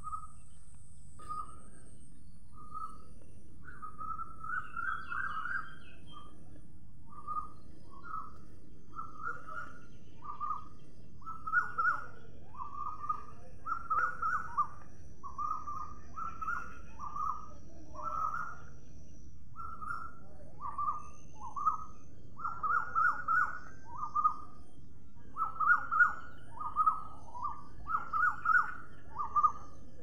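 Cockatoos calling in a long series of short, harsh calls, about one a second, louder in the second half.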